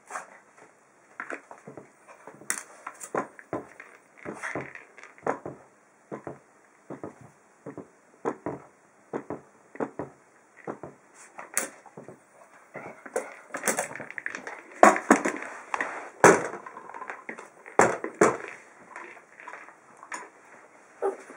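A red treat-dispensing ball being pushed and knocked about by a small dog going for the food inside, giving irregular knocks, clicks and rattles that come thicker and louder in the second half.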